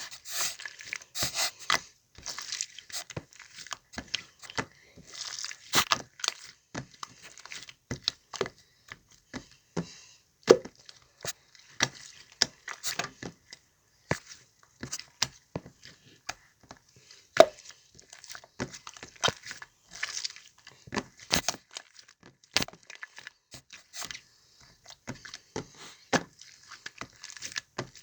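Slime being played with, making irregular sharp clicks and pops mixed with short crackling bursts.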